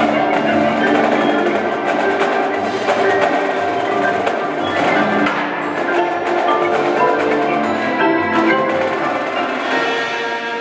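Indoor percussion ensemble playing: marimbas and other keyboard mallet instruments sound many layered notes, with sharp strokes from the marching drums.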